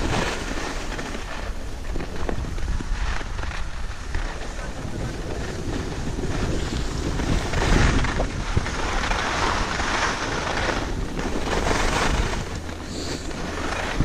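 Wind buffeting an action camera's microphone during a ski run, mixed with the rushing scrape of skis on packed snow. The noise swells and eases every second or two as the skier turns.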